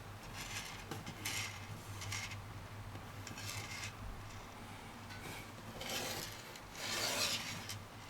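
Scratchy rubbing strokes from hands handling things on a desk, several short ones and a longer one near the end.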